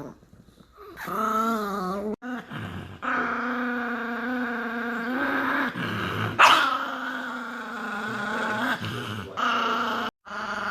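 Chihuahua growling and grumbling in long, wavering, pitched runs with short breaks, and one sharp yip about six seconds in, which is the loudest moment. It is the sound of the dog getting angry and upset.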